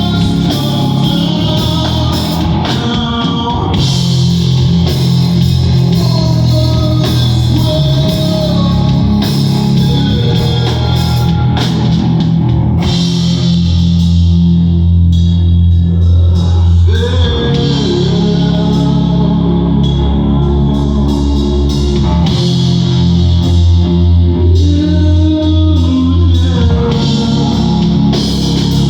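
Live rock band playing, with drum kit, electric guitar and bass. Heavy, sustained low bass notes come in for two stretches, around the middle and again later.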